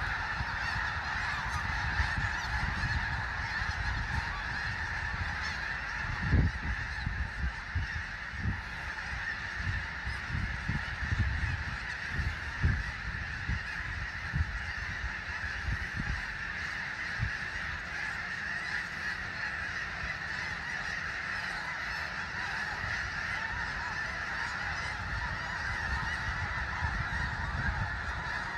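A very large flock of snow geese calling all together: a steady massed chorus of honks with no break. Low rumbling bursts come and go underneath it, the loudest about six and about twelve and a half seconds in.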